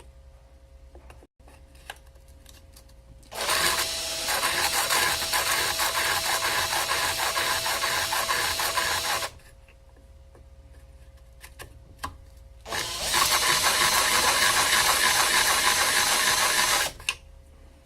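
A cordless drill spinning the grinding wheel of a drill-bit sharpening attachment as a blunt drill bit is sharpened against it. It runs in two bursts of about six and four seconds, with a pause and a few clicks between.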